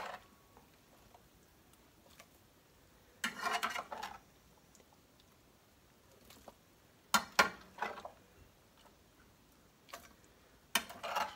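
Metal spoon scraping and clinking against a skillet and a ceramic casserole dish as spoonfuls of beef and cabbage mixture are scooped and dropped in, in three short bouts of clatter with quiet between.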